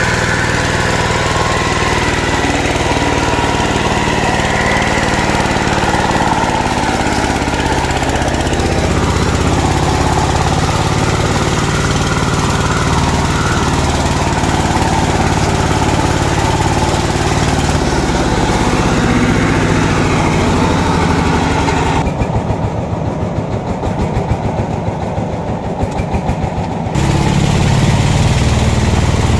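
Single-cylinder diesel engine of a công nông farm vehicle running hard under load as its wheels churn in mud. About two-thirds of the way through it slows to a pulsing chug for some five seconds, then picks up again near the end.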